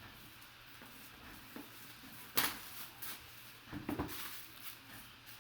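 A boxed jersey's packaging being handled and opened by hand: scattered rustling, a sharp click about halfway through, and a short burst of crinkling and knocks a little later.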